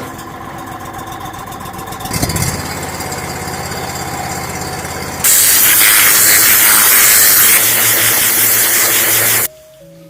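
Gas-engine pressure washer running steadily, then a loud hiss of high-pressure water spraying onto pavers starts about five seconds in and cuts off abruptly near the end.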